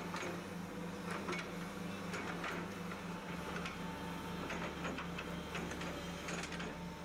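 A low machine hum pulsing evenly about four times a second, with a faint steady higher tone over it. Now and then a short scrape in sand breaks through.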